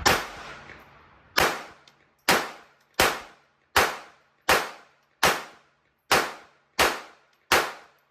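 Ruger LCP II .22 LR pistol firing ten evenly spaced shots of Federal Hammer Down 40-grain ammunition, one a little under every second, each a sharp crack with a brief ringing tail. The steady rhythm, with no pauses, matches the pistol cycling reliably on this ammo.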